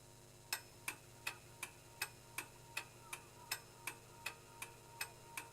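Steady clock-like ticking, about two and a half sharp ticks a second, starting about half a second in, over a faint steady hum.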